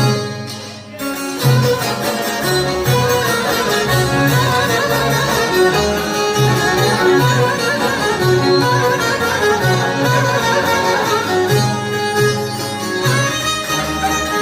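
Instrumental Albanian folk music led by a fiddle over a steady low beat; the music dips briefly about a second in, then carries on.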